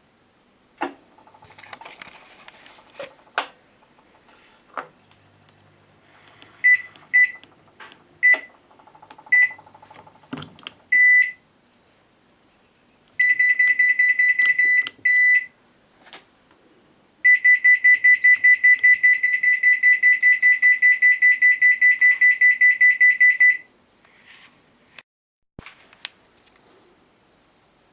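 Hitachi BeatWash washing machine's control-panel buzzer: a string of short high beeps as buttons are pressed, then two stretches of rapidly pulsing beeps, the second lasting about six seconds, with a few clicks before.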